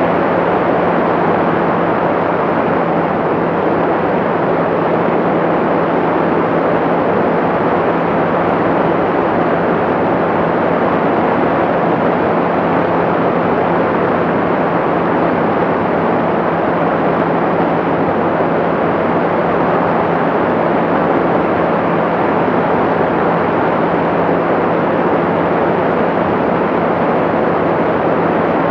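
Light aircraft in level cruise: a steady engine and propeller drone under rushing wind, with a constant low hum and no change in pitch or loudness.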